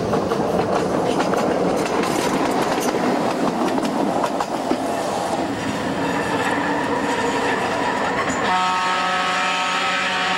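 Tandy Center Subway car running on the track, its wheels rattling and clicking over the rails. Near the end a steady horn sounds for about two seconds.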